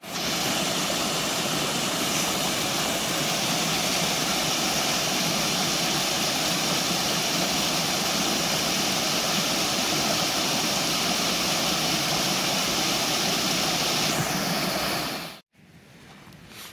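Water rushing steadily over a small rocky waterfall, heard close as an even rush of white water. It cuts off suddenly about fifteen seconds in.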